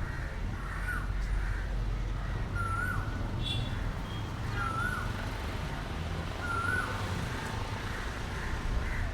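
Small-town outdoor ambience: a crow cawing about every two seconds over a steady low rumble.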